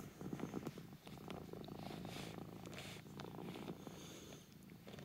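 Tabby cat purring steadily, close up, with brief soft rustles of a hand stroking her fur.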